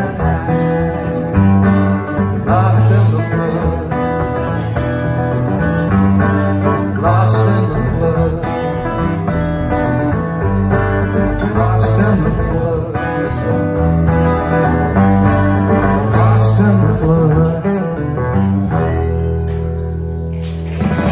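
Live country band playing the instrumental ending of a song, guitars over a steady bass line; near the end the playing settles onto a held chord.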